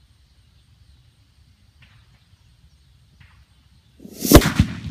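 Homemade sparkler bomb of 97 sparklers packed in taped PVC pipe under a bucket detonating: a single loud blast about four seconds in, after several seconds of faint background.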